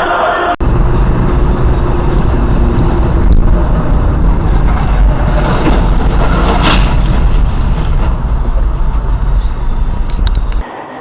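Loud, steady low rumble of a vehicle driving, picked up by an in-vehicle dashcam microphone, with a brief harsh burst of noise about two-thirds of the way through. The sound starts abruptly just after the beginning and stops abruptly near the end.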